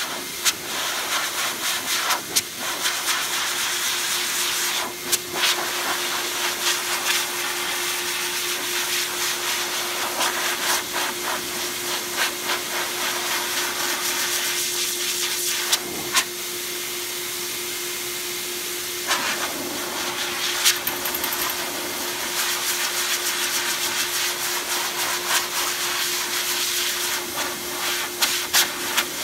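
Metro Vac Master Blaster forced-air dog dryer running, a loud rushing air hiss over a steady motor hum, blasting shedding undercoat out of a Siberian husky's coat. The rush of air wavers and dips briefly a few times.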